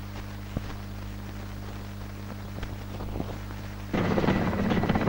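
Steady low hum with a few faint clicks from an old film soundtrack. About four seconds in, a louder, denser sound cuts in.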